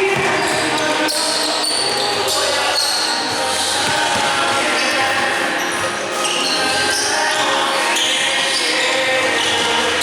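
Basketball being dribbled and bounced on a hardwood court during a game, with players' shouts in an echoing gym.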